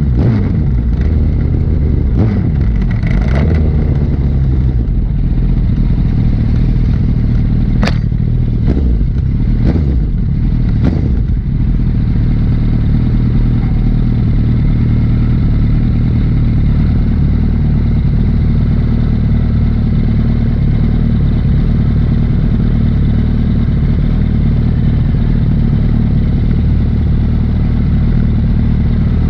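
Liter-class sport bike engine running while riding, its pitch falling over the first couple of seconds and then holding steady at cruise. A handful of sharp clicks or clatters sound in the first eleven seconds or so.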